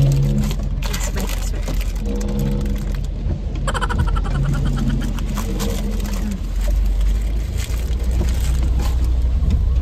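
Paper crinkling and tearing as a paper straw wrapper is bitten and pulled open against a paper bag, over a steady low car rumble that grows stronger about six and a half seconds in.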